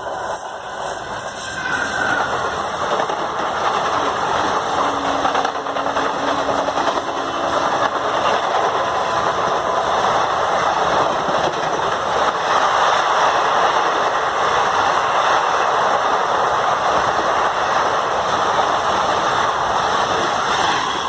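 A train running along the track: a steady, loud rumble and rattle of wheels on rails, with a short squeal about two seconds in.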